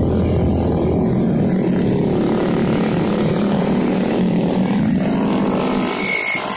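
A stream of motorcycles and scooters passing close by one after another, their engines running steadily at road speed.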